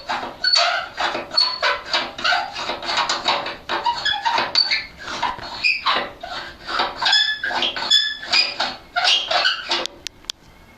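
Rear seat backrest of a VAZ-2109 (Lada Samara) hatchback squeaking over and over: a quick, uneven run of short high squeaks, several a second, that stops near the end.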